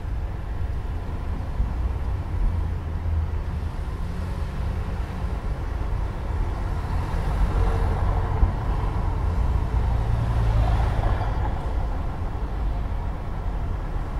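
Low, steady rumble of street traffic, swelling a little about halfway through as a vehicle passes.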